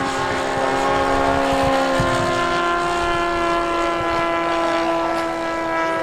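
Radio-controlled Hawker Typhoon model's OS GF40 four-stroke petrol engine running in flight, a steady drone whose pitch falls slowly.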